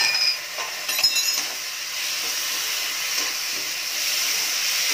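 Chopped tomatoes and onion masala sizzling in a hot steel kadhai, stirred with a steel slotted ladle. A couple of sharp clinks come near the start and about a second in, as a glass spice bowl is set down and the ladle knocks the pan.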